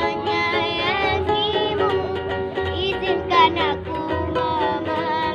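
A girl singing a melody to a strummed ukulele.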